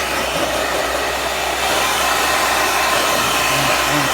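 Repaired handheld electric hot-air blower running steadily on test: a loud, even rush of air over its motor's hum.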